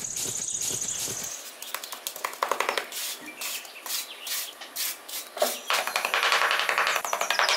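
Small metal trowel scraping and smoothing loose sand in repeated short strokes. Bird chirps sound alongside, and music comes in near the end.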